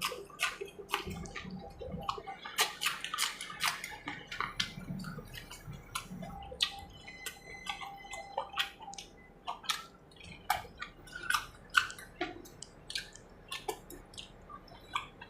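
Close-miked eating: irregular wet chewing and smacking clicks from a mouthful of food.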